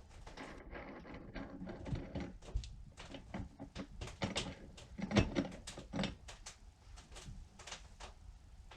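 Irregular clicks, taps and knocks of hand tools and metal parts being handled on a Stihl chainsaw, with one louder knock about five seconds in.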